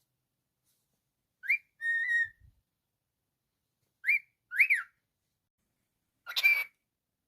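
Cockatiel whistling: a quick rising-then-falling note and a short held note, two more up-and-down whistled notes a couple of seconds later, then a harsh scratchy call near the end.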